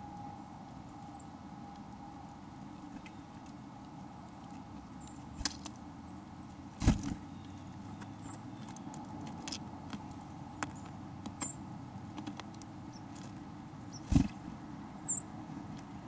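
Small birds pecking and scratching among seed and peanut shells close to the microphone: irregular sharp taps and knocks, the two loudest about 7 and 14 seconds in, over a steady low background hum.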